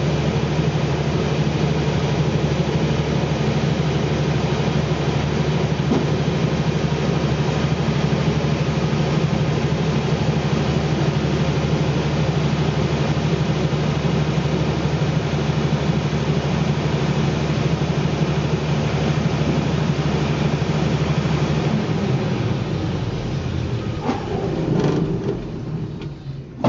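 Deutz diesel engine of a 150 kVA silent-canopy generator set running steadily at 1500 rpm with no load during its automatic cool-down. About 22 seconds in the cool-down ends and the engine is stopped, its sound dropping away as it runs down.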